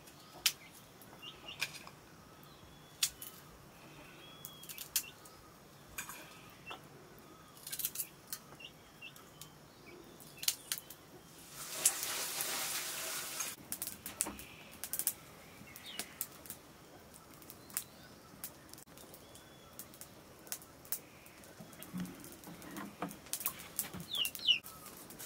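Scattered sharp clicks of a curved sickle blade cutting and peeling garlic cloves over a metal bowl, with small birds chirping now and then. A burst of rustling noise lasts about a second and a half around the middle.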